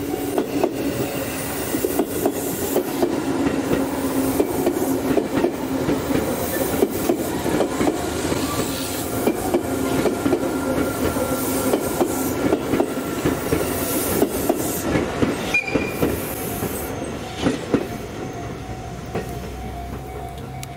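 A train of new Tobu 500 series Revaty cars hauled by a Chichibu Railway Deki electric locomotive, rolling past with its wheels clicking rapidly over the rail joints and a faint squeal. The clicking fades away over the last few seconds.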